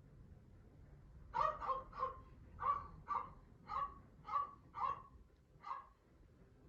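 A series of about ten short, sharp animal calls, each about half a second apart, starting a little over a second in.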